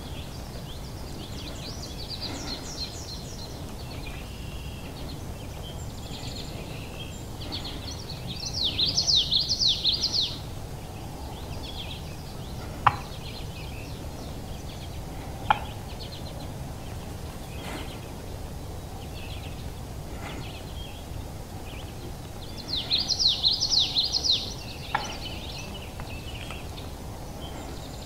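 Wild birds calling in spring woodland: a songbird twice sings a loud, rapid warbling trill lasting about two seconds, with other small birds chirping throughout. A few sharp clicks and a steady low outdoor rumble lie underneath.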